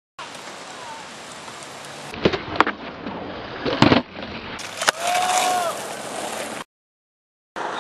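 Skateboard on concrete: the wheels rolling with a steady hiss, then sharp clacks of the board popping and landing, about four in all, across a few short clips. The sound cuts off to silence near the end.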